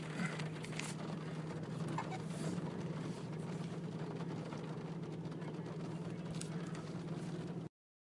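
Steady car cabin noise while driving on a wet road: an engine and tyre hum, with a few light ticks in the first second. It cuts out to silence for a moment near the end.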